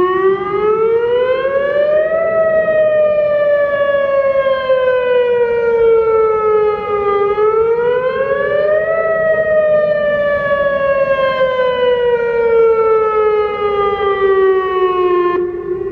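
Whelen WPS-2903 electronic siren sounding a loud wail: the pitch climbs quickly for about two seconds, then falls slowly for about five, twice over. Near the end it drops to a steadier, softer low tone.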